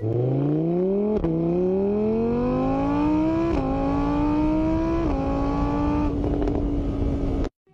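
Motorbike engine accelerating through the gears. Its pitch climbs, drops back at each of four gear changes, holds level near the end, then cuts off abruptly.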